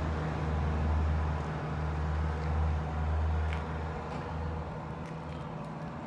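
Low steady engine hum, fading away after about four seconds, with a few faint ticks near the end.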